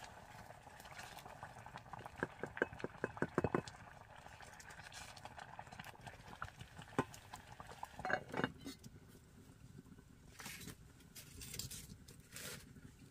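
Kitchen clatter while rice porridge is being made: a quick run of about a dozen clinks a couple of seconds in, then scattered single knocks and clatter.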